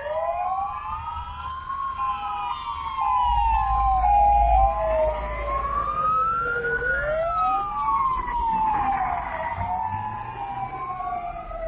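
Fire engine sirens wailing, several overlapping wails slowly rising and falling over a few seconds each, with the engine noise of the trucks driving past.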